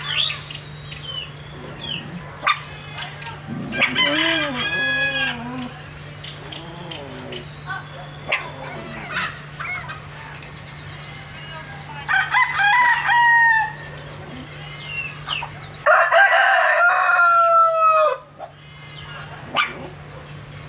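Rooster crowing three times, each a long cock-a-doodle-doo, at about four, twelve and sixteen seconds in; the last crow is the loudest. Short bird chirps come between the crows over a steady background hum.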